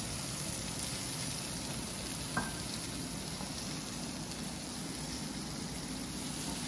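Diced onions and bell peppers sizzling in oil in a stainless steel pot, a steady frying hiss. A single short knock about two seconds in.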